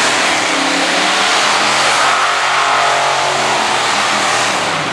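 Modified pulling tractor's engine revving up and running at full power as it launches down the track, dragging the weight-transfer sled. The engine's pitch climbs in the first couple of seconds, then holds loud and steady.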